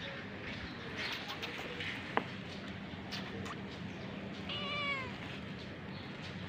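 A cat meows once, a short, slightly falling call about four and a half seconds in. A single sharp click comes about two seconds in.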